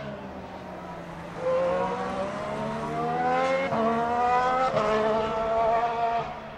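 Formula 1 car's Renault 1.6-litre turbocharged V6 accelerating, getting much louder about a second and a half in. Its note climbs steadily and drops twice in quick succession with upshifts, then fades near the end.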